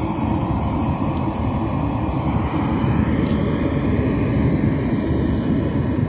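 Pink noise played through a speaker driven by a 4-channel car audio power amplifier under test: a steady, loud hiss-rumble with most of its weight in the low end.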